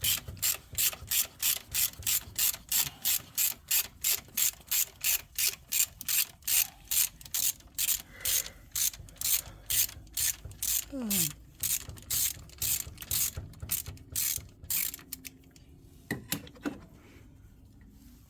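Socket wrench ratchet clicking steadily, about three clicks a second, as loosened thermostat housing bolts are backed out. The clicking stops about fifteen seconds in, with a few last clicks a second later.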